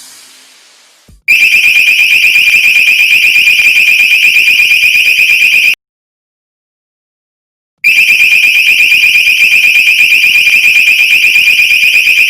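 Piezo buzzer of a PIR motion-sensor alarm sounding a loud, high-pitched, rapidly pulsing alarm tone, the sign that the sensor has detected motion. It starts about a second in, cuts off completely for about two seconds, then starts again.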